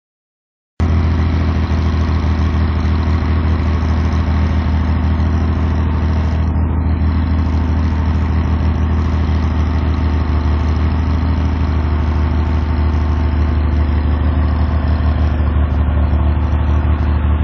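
Early Porsche 911 race car's air-cooled flat-six engine idling steadily and loudly, cutting in abruptly about a second in.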